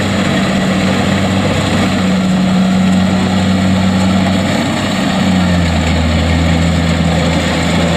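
Kubota DC-70 rice combine harvester's diesel engine running steadily at working speed; about five seconds in its pitch drops a little and the low hum grows stronger.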